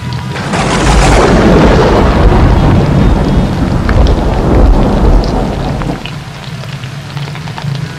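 Thunderstorm: rain falling steadily and a long roll of thunder that builds about half a second in, stays loud for several seconds and dies down about six seconds in.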